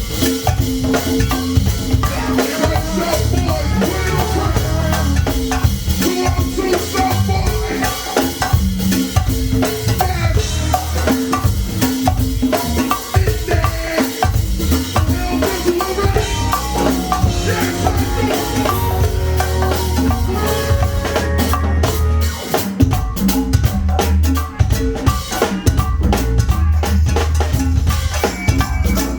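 Go-go band playing live: a drum kit and percussion keeping a steady groove over a low bass line.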